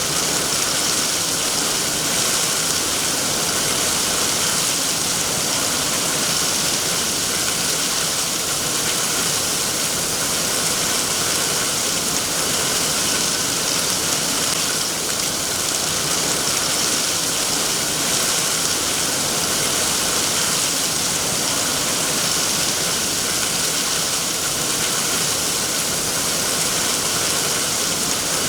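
Steady, heavy rainfall, an even hiss with no single drops standing out.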